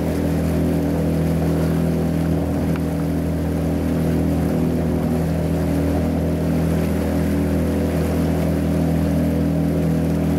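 A boat's motor runs steadily at an even cruising speed, a constant low hum with no change in pitch.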